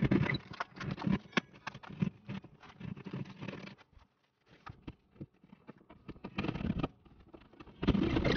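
Utility-knife blade cutting and scraping into drywall around a torn-out anchor hole: quick, irregular scratching and crunching strokes with sharp clicks. The sound stops briefly a little before halfway, and then hand-tool scraping and crunching at the wall starts up again, loudest near the end.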